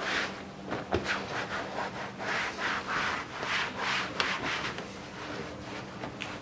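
A cloth towel wiping down a damp, textured plastic engine-bay cover in quick back-and-forth rubbing strokes, with a couple of sharp clicks. The strokes thin out near the end.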